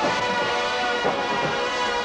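Drum and bugle corps horn line playing held brass chords over the drums, with a brief change in the chord about a second in.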